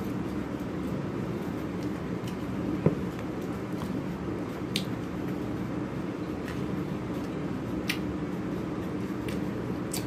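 Eating sounds: wet chewing and a few sharp clicks of a fork and fingers at a foil food tray, the loudest a knock about three seconds in, over a steady background hum.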